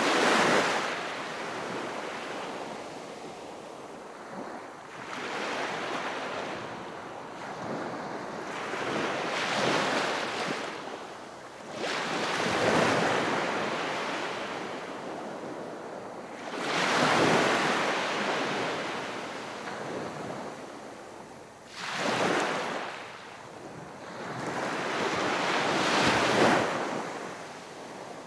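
Gentle sea waves breaking and washing up on the shore of a calm sea. Seven or so swells follow one after another, each rising in a hiss and fading over a few seconds.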